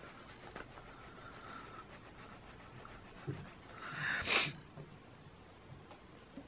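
Faint rubbing of a microfiber cloth over the clear plastic ID window of a leather wallet, wiping off leftover glue residue. About four seconds in comes one short, louder rush of noise.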